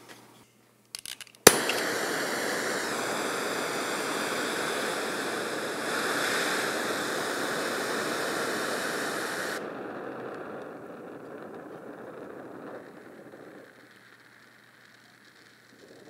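Oxy-acetylene torch lit with one sharp pop about a second and a half in, then the steady hiss of the gas flame. The hiss drops in level about ten seconds in and again near the end as the torch is turned down toward a neutral flame.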